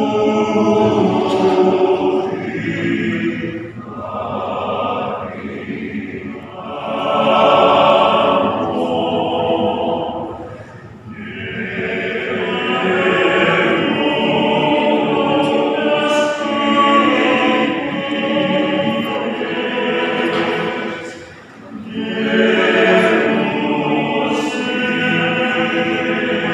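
Men's choir singing a cappella in several parts, phrase after phrase, with a short breath pause about 21 seconds in.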